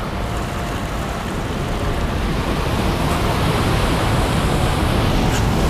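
Surf crashing against shoreline rocks: a big wave breaking and its spray and white water rushing. The noise builds steadily louder.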